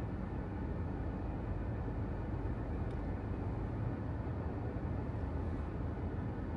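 Steady low rumble of a car driving in city traffic: engine and tyre noise with no distinct events.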